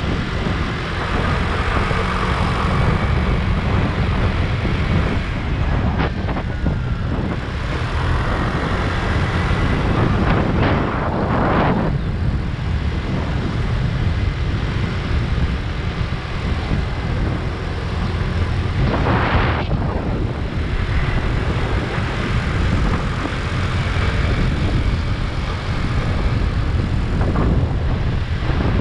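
Motor scooter underway at road speed: steady wind buffeting the microphone over the scooter's engine, with a couple of brief louder whooshes.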